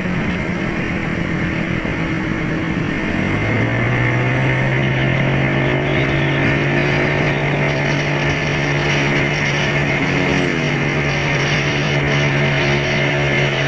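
A vehicle engine running at a steady speed under a constant rush of wind noise. The hum steps up in pitch about three seconds in and then holds steady.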